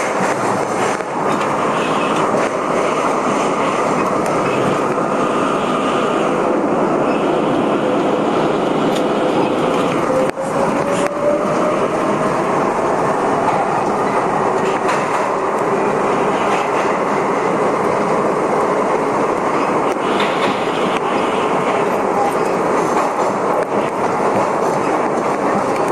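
Budd-built R32 subway car running at speed through a tunnel, heard from inside the front car. There is a steady loud rumble of steel wheels on rail with occasional clacks, and a faint whine that slowly rises in pitch around ten seconds in.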